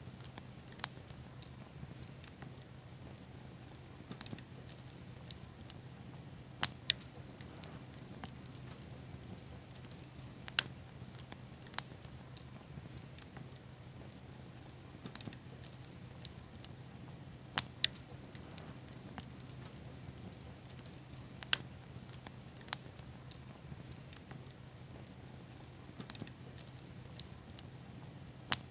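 Small bonfire of pine cones and seed pods burning with a soft hiss, with sharp crackles and pops at irregular intervals, a few every several seconds.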